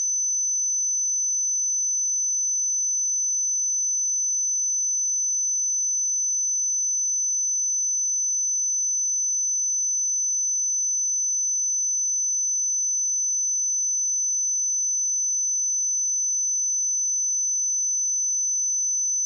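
A steady, unbroken 6063 Hz sine-wave test tone: one high-pitched pure tone at constant level.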